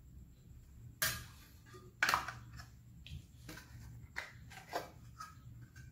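Clear plastic weighing trays handled and set onto a small digital kitchen scale: a series of light plastic clicks and knocks, the two sharpest about a second apart near the start, then a few softer ones.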